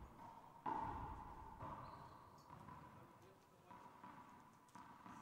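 Quiet ambience of an indoor racquetball court between rallies: a faint steady hum under low crowd noise, which swells suddenly about two-thirds of a second in and then fades.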